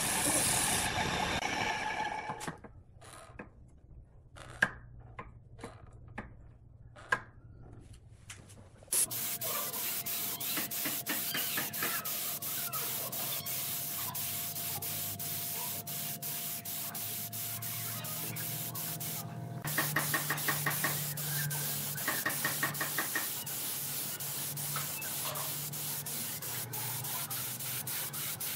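Sandpaper rubbing on a wooden vase spinning on a lathe. After a quieter stretch with a few sharp clicks, a long run of steady noise follows, with a fast, even ticking beat.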